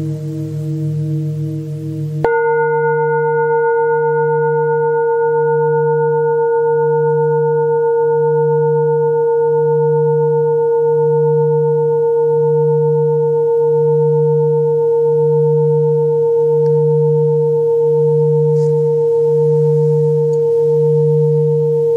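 Tibetan singing bowls ringing: about two seconds in a new, louder ring starts suddenly and holds as a long, pure, steady tone with several higher overtones. Beneath it a low tone wobbles slowly, about once a second.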